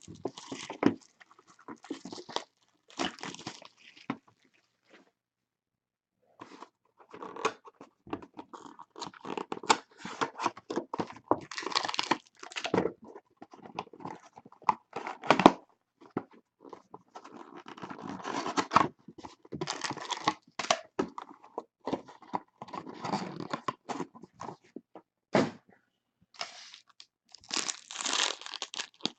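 Sealed trading-card boxes and packs being torn open by hand, wrappers tearing and crinkling with scattered clicks and rustles. The sounds come in irregular runs, with a short near-silent pause near the start.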